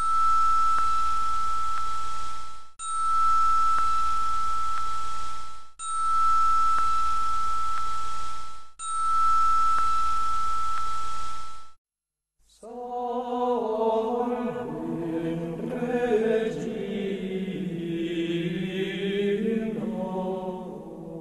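A high, steady electronic-sounding tone played four times in a row, about three seconds each with short breaks, over a hiss. After a brief silence, about twelve seconds in, Gregorian chant singing starts.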